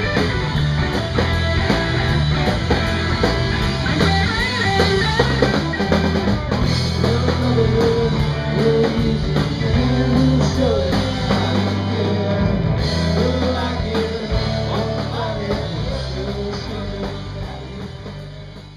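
Rock band playing with guitar and drum kit, fading out near the end.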